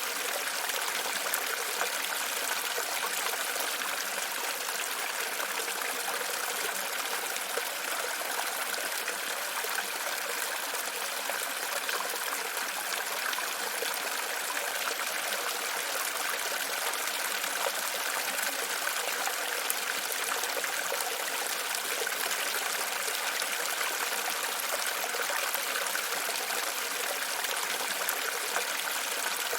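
Running water, a steady unbroken trickling and splashing with no pauses.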